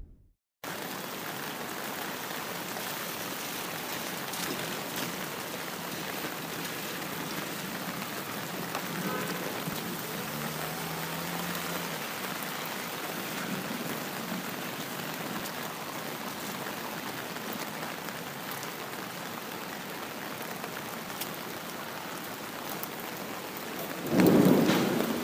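Steady rain falling, an even hiss, starting after a brief silent gap. About 24 seconds in, a loud clap of thunder breaks over it.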